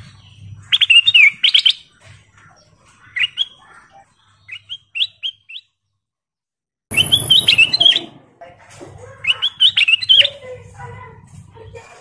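Ruby-throated bulbul (kutilang emas) singing: bursts of clear, whistled phrases with quick pitch slides, broken by pauses, with the sound dropping out completely for about a second midway. A faint low hum runs underneath.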